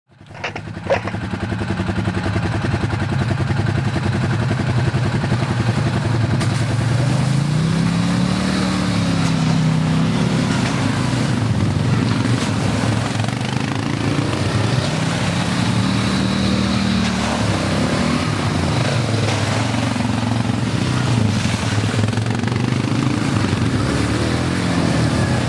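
Several ATV (quad bike) engines running on a dirt trail, their pitch rising and falling as the riders throttle up and ease off.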